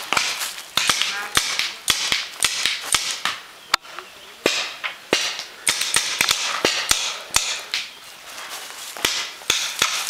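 Paintball markers firing: many sharp pops in irregular volleys, at times several a second.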